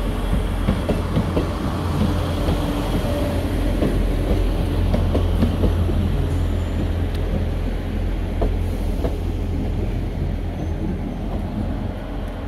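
Class 158 diesel multiple unit passing close by, its underfloor diesel engines droning low and steady while the wheels clatter over points and rail joints in irregular clicks.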